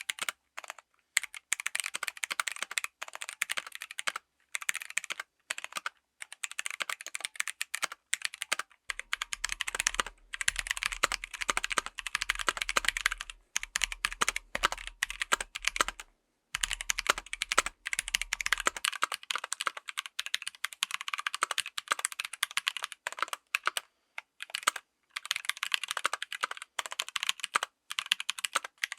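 Fast typing on a full-size mechanical keyboard with tactile switches: dense runs of key clacks broken by short pauses every few seconds.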